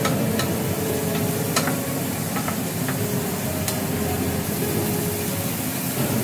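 Chopped onion and garlic sizzling in oil in a metal frying pan, stirred with a wooden spoon that knocks against the pan a few times.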